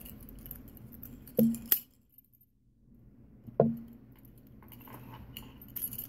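Metal keys on a ring jingling and clinking against a brass padlock while the right key is found and fitted, with two sharp clinks about a second and a half in, another near the middle, and lighter jingling towards the end.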